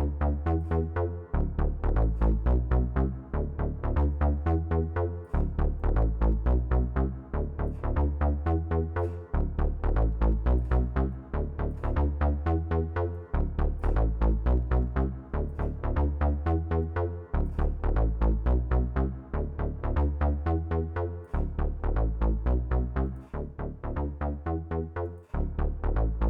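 Synth bass line played back through the SSL EV2 channel strip plugin with its preamp driven hard into distortion. It is a short sequenced pattern of fast, deep bass notes that repeats about every four seconds.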